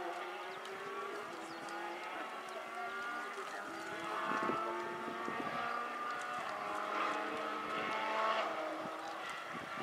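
Distant rally car engine pulling hard through the gears, its pitch climbing in each gear and dropping at each upshift, with a few sharp pops about halfway through.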